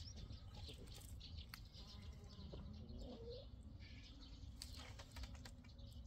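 Faint outdoor background with scattered light clicks and knocks, and a short distant animal call about three seconds in.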